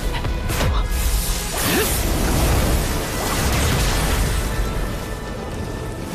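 Dramatic background music layered with magic-blast sound effects: whooshes and a deep, rumbling explosion.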